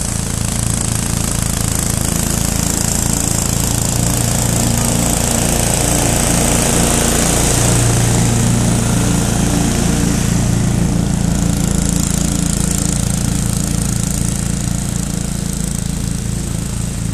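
Old Ransomes 36-inch walk-behind mower running steadily under load as it cuts thick, matted field grass. It grows louder as it passes close by about halfway through, then fades as it moves away.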